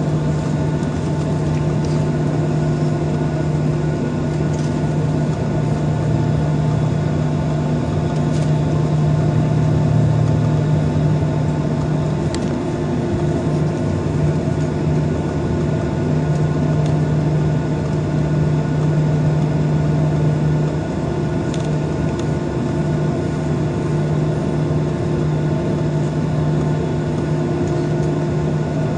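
Steady engine hum of a jet airliner taxiing at low thrust, heard inside the cabin over the wing, with several steady tones under an even rush of noise.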